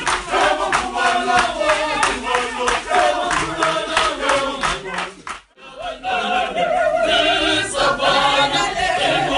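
A choir of voices singing together in harmony, with steady rhythmic hand clapping in the first half. The sound drops out briefly about halfway through, then the group singing carries on.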